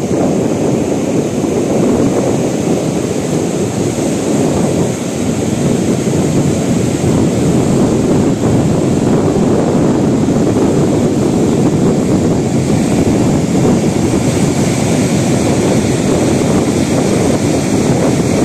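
Sea surf breaking and washing up on a sandy beach, a steady loud rush of waves, with wind buffeting the microphone.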